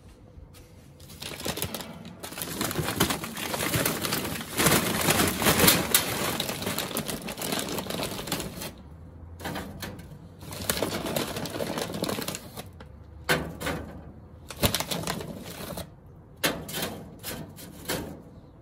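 Charcoal briquettes tumbling into a steel grill firebox, clattering together and on the metal for several seconds. Then come shorter bursts of knocks as the briquettes are shifted by hand.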